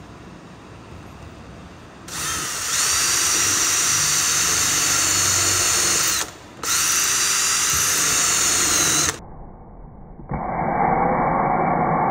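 Cordless drill-driver drilling into a wooden drawer rail on plywood: the motor winds up to a steady high whine for about four seconds, stops briefly, runs again for about two and a half seconds, then starts once more near the end, sounding duller.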